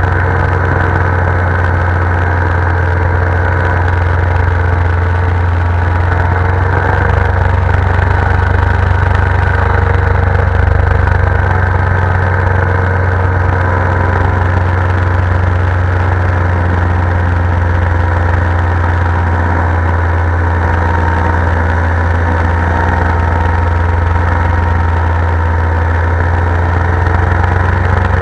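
Paramotor engine and propeller running steadily in flight: a loud, even drone with no change in throttle.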